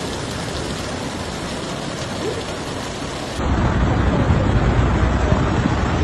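Heavy rain making a steady hiss. About three and a half seconds in, the sound cuts abruptly to a louder, deeper rushing noise.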